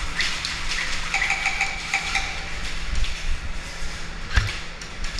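Indoor airsoft arena ambience: scattered sharp clicks and knocks over a steady low hum, a brief steady tone a little over a second in, and a heavy thud about four seconds in.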